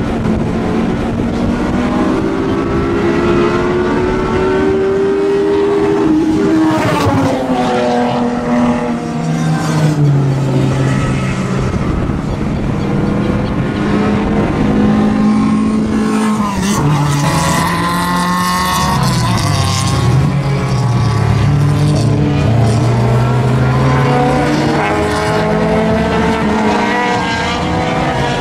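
Several racing car engines at hard throttle, pitch climbing through the revs and dropping sharply at each upshift or lift, more than one car heard at once as they come past.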